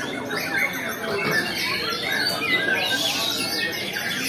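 A chorus of many caged songbirds singing at once, their chirps, whistles and fast trills overlapping continuously.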